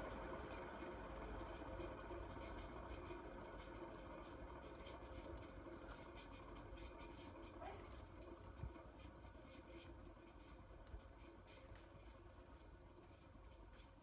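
1979 Envirofan heavy-duty Gold Line industrial ceiling fan spinning up, a faint motor hum that gradually fades, with light irregular ticking.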